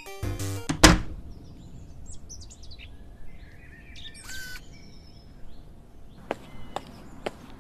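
A wooden door shuts with a bang about a second in, then birds chirp over a quiet outdoor background. Footsteps start near the end, about two a second.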